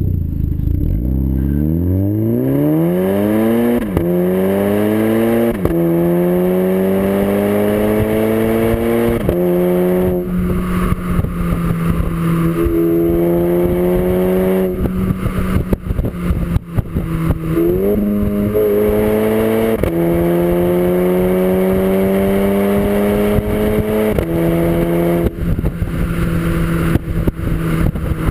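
Seat Ibiza Cupra's tuned 1.4 TSI four-cylinder through a Milltek exhaust, accelerating hard through the gears. The engine note rises in pitch in each gear and drops sharply at each quick upshift, several times over.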